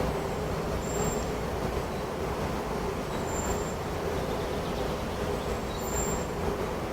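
Wind rushing steadily through forest trees, with a short, high bird call about three times.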